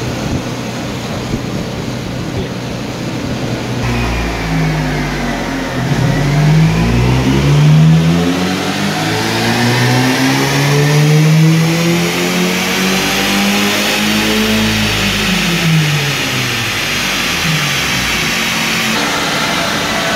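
Opel Corsa C GSi's 1.8-litre four-cylinder engine doing a full-load dyno pull, its tyres driving the chassis dynamometer rollers: revs climb steadily for about ten seconds with a rising tyre-and-roller whine, then fall away as it coasts down and settles back.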